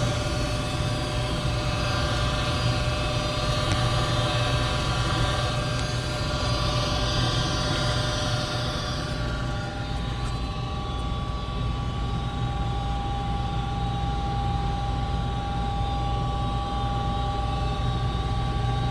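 Goodman 95% AFUE gas furnace running steadily just after burner ignition: a constant low hum from the inducer fan with the burner lit, and several steady whining tones. About halfway through, a high hiss dies away and one of the tones shifts slightly higher.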